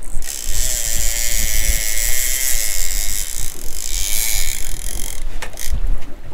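Fishing reel's ratchet clicking in a fast, steady rasp, stopping suddenly about five seconds in, over a low wind rumble.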